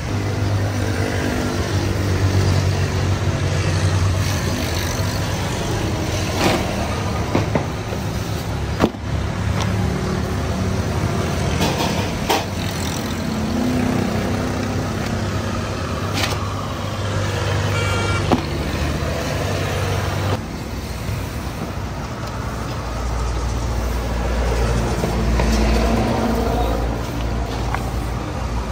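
Street traffic: vehicle engines running and passing on the road, a steady low hum with scattered clicks and knocks, and a deeper engine rumble that swells near the end.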